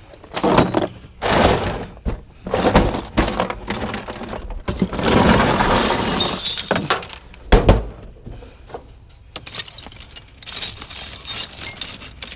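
Metal hand tools, screwdrivers and files, clattering and clinking against each other as they are rummaged through, with a longer rattle about halfway and a heavy thunk just after it.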